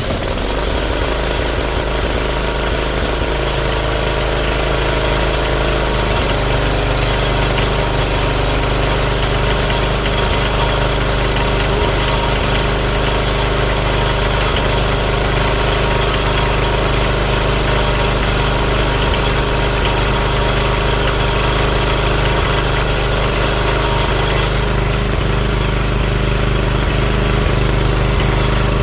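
Sears ST12 garden tractor's engine running steadily at idle, with a slight change in its note about six seconds in.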